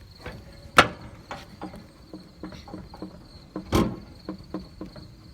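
Irregular clicks and knocks from a riding lawn mower's levers and body being handled, with two louder thumps, about a second in and near 4 seconds. A steady high-pitched tone sounds behind them throughout.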